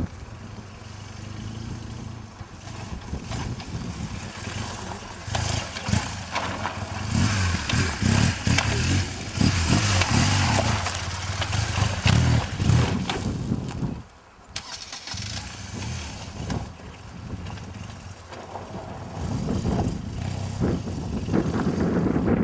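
BMW R 1200 GS adventure motorcycle's flat-twin boxer engine being ridden off-road, the throttle opened and closed in repeated surges as it climbs a dirt mound. The engine falls away briefly about fourteen seconds in, then builds again.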